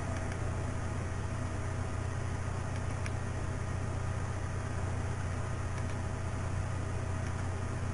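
Steady low electrical hum and hiss of recording background noise, with two faint mouse clicks about three and six seconds in.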